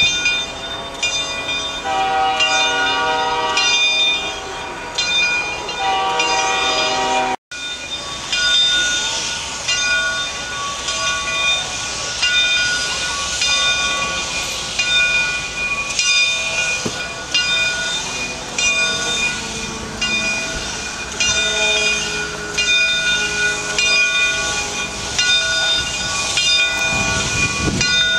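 Steam locomotive starting off slowly with its cylinder cocks open, steam hissing out in rhythmic chuffs about once a second.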